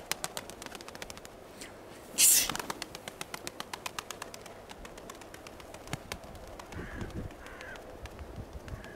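Domestic pigeons' wings clattering in flight around the dovecote, a rapid even run of about eight claps a second that fades out about halfway. About two seconds in there is a loud short rushing hiss.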